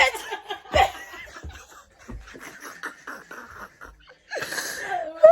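A woman laughing, a long run of quick, breathy pulses of laughter, trailing into a breathy exhale near the end.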